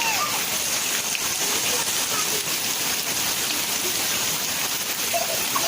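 Steady rain falling and pattering on surfaces around the microphone.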